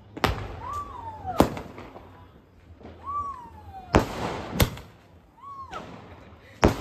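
Aerial fireworks going off: three whistles that rise briefly and then glide down in pitch, each ending in a sharp bang, with about five loud bangs in all.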